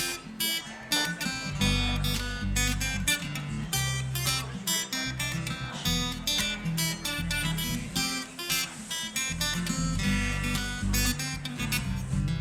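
Acoustic guitar strummed in a steady rhythm with bass notes: the instrumental intro of a folk song, before the singing comes in.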